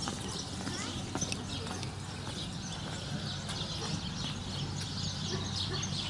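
Footsteps on a paved path, with small birds chirping.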